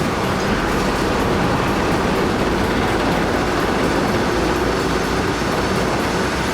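Heavy vehicles running with a steady, dense mechanical rumble that holds an even level throughout.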